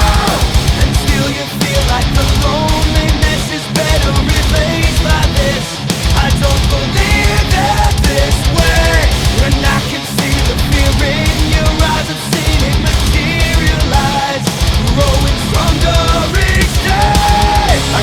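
Background heavy rock music with fast, driving drums and distorted guitars, with what may be singing.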